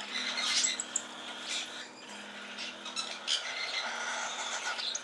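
Hungry hand-fed baby cockatiels giving rapid, high begging chirps and squawks during feeding, over a low steady hum.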